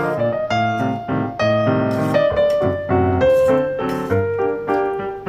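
Background music: a piano melody of short notes over a steady bass line.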